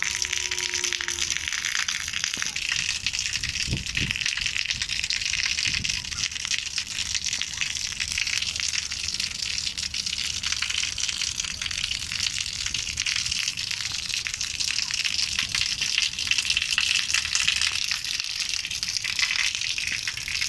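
Heavy rain falling steadily, a dense even patter of drops. A short steady tone sounds at the very start, and two low thuds come about four and six seconds in.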